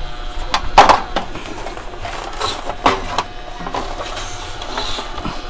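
Plastic back cover of a CRT TV being handled and moved aside: knocks and clatter, the loudest a sharp knock about a second in, with scraping and rubbing between.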